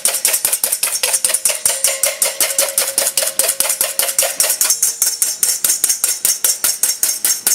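Wire whisk beating an egg white by hand in a bowl, clicking against the bowl in a fast, even rhythm of about seven strokes a second, whipping air into the white.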